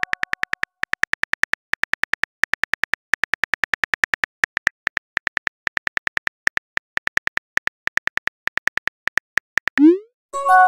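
Phone keyboard click sound effect: rapid ticks, about eight a second, in runs of several with short pauses between, as a message is typed out. Near the end comes a short rising swoosh, the message-sent sound.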